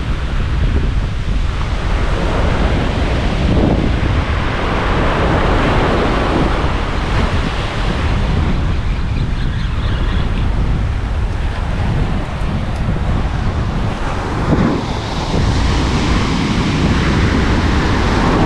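Ocean surf breaking and washing up the beach, in surges that rise and fall, under strong wind buffeting the microphone with a steady low rumble.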